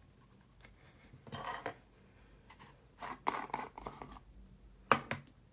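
Plastic jar of loose setting powder being shaken and handled: short scraping, rattling bursts about a second and a half in and again around three seconds, then a sharp click near the end.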